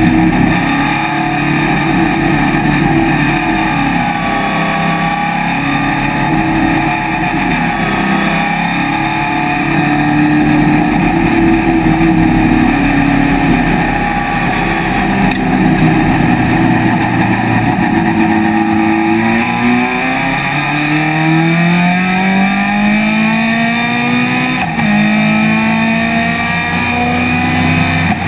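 Onboard sound of a vintage race car's engine running hard, with wind rushing through the open cockpit. In the last third the engine note climbs steadily as the car accelerates, breaks briefly about 25 seconds in, then climbs again.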